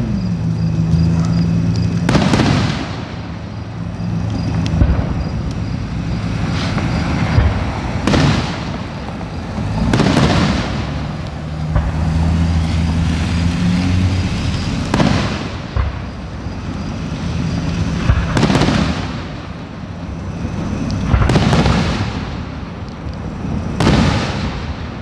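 Aerial firework shells bursting: about eight booms a few seconds apart, each followed by a rolling echo, over a low steady hum.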